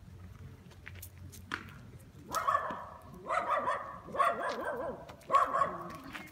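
A cat meowing four times in a row, each meow about half a second long and loud, roughly one a second.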